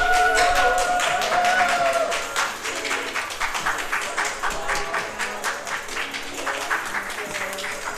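Several people clapping their hands, many quick claps, over background music. A long held note sounds through the first two seconds.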